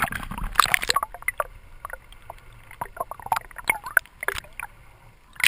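Sea water splashing and gurgling around a camera dipped at and just below the surface, with irregular short knocks and clicks.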